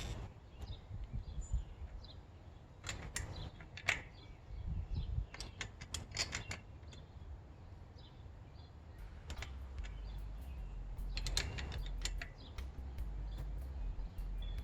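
Scattered light clicks and taps of tools and metal bike parts as the rear wheel's axle nuts are tightened by hand, with a low rumble building from about halfway through.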